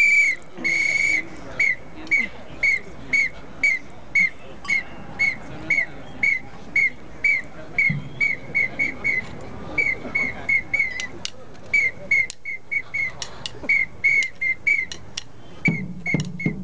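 A whistle blown hard, first in one long blast, then in short rhythmic blasts about two a second, sometimes in quick runs. Drumming starts up again near the end.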